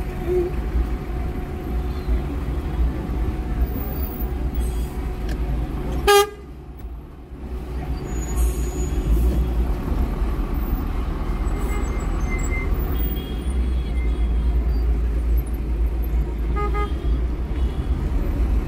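Steady road and engine rumble of a car driving in city traffic, with car horns tooting: one loud short blast about six seconds in, and a couple of quick beeps near the end.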